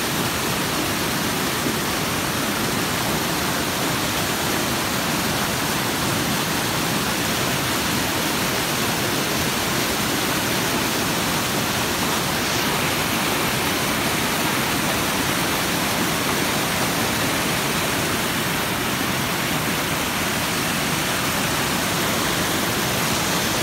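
Stream water rushing and churning over boulders in a small whitewater cascade, a steady unbroken rush.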